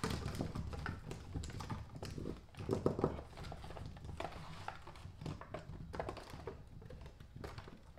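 Hands rolling and shifting meatballs around in a disposable aluminium foil pan: many light, irregular taps and rustles of the meatballs against the thin foil, with a louder cluster of knocks about three seconds in.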